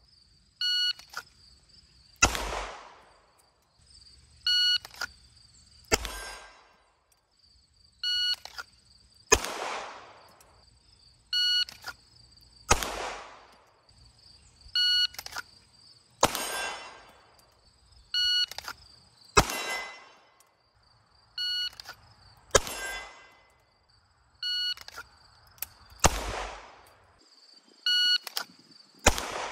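Shot timer beeping, then about a second and a quarter later a single 9mm pistol shot from a CZ Shadow 2 drawn from the holster, with a long echoing tail. The beep-then-shot cycle repeats about every three and a half seconds, about nine times.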